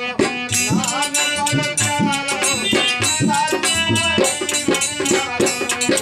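A harmonium holding sustained chords and melody, with a dholak hand drum and jingling percussion keeping a steady beat.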